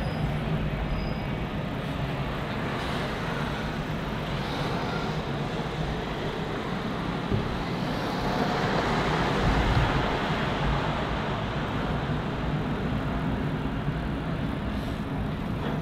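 City road traffic: a steady noise of vehicles on a busy street, with one vehicle passing more loudly about nine to ten seconds in.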